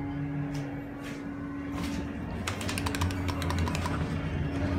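Steady low hum in a KONE hydraulic elevator car, with a quick run of sharp clicks, about a dozen in a second, a little past the middle.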